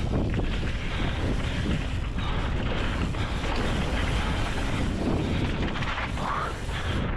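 Wind rushing over the camera microphone as a mountain bike descends a dirt flow trail, with the tyres rolling over the dirt and the bike rattling over bumps. A short squeak comes near the end.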